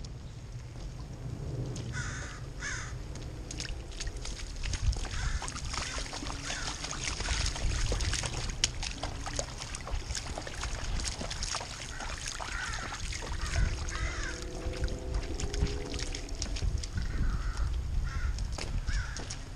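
Rubber rain boots splashing and stepping through puddles on wet pavement, with many sharp ticks of water drops on the camera housing. Short harsh calls come several times, often in pairs.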